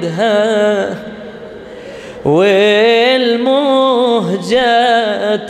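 A solo male voice chants an Arabic lament (nai) into a microphone in long, wavering, drawn-out notes. About a second in he breaks off for a moment, then comes back in loudly on a new phrase.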